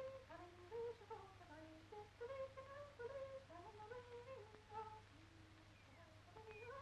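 A voice faintly singing a melody, moving from one held note to the next, over a steady low electrical hum.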